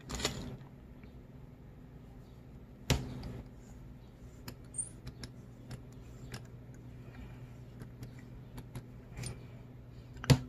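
Small metal clicks and taps as a QP Design Juggerknot V2 rebuildable tank atomizer is unscrewed and pulled apart by hand, over a faint steady hum. There is a sharper knock about three seconds in, and the loudest click comes near the end as the parts come apart.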